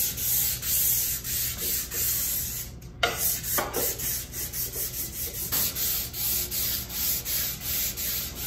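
500-grit sandpaper on a hand sanding block rubbing back and forth along a walnut picture frame, in quick strokes about three a second, with a brief pause about three seconds in. This is the final fine-grit pass that evens the surface and fills the pores before finishing.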